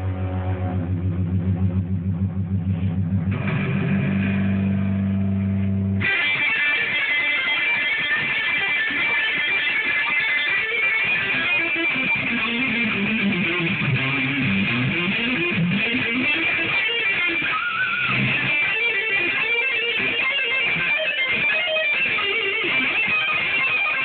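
Electric guitar played through an amplifier in a fast shred style. For the first six seconds a low note is picked rapidly and evenly; then the tone abruptly turns fuller and brighter, with quick runs of notes moving up and down.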